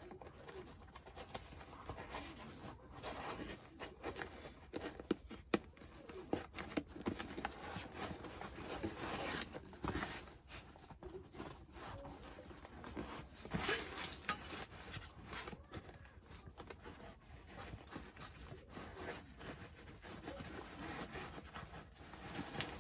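Vinyl seat cover being pulled, folded and smoothed by hand over a mower seat, rustling and rubbing, with scattered small knocks and clicks.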